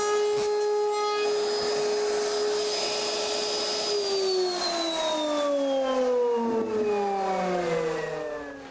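Router in a benchtop router table running at full speed with a 1/4-inch rabbeting bit, cutting a rabbet along the plywood edges of a box guided around the bit. About four seconds in it is switched off, and its whine falls steadily in pitch as the bit spins down.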